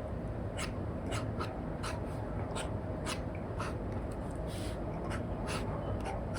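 Apple Pencil Pro drawing on an iPad fitted with a paper-like matte screen film: short, scratchy strokes and taps at an uneven pace, about two a second, over a steady low background hiss.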